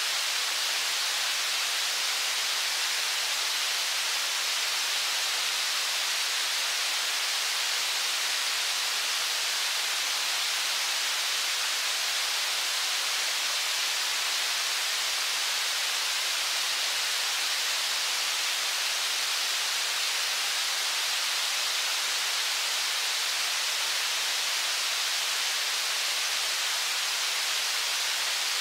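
Steady rushing of river water over rapids, an unbroken high hiss with no change in level.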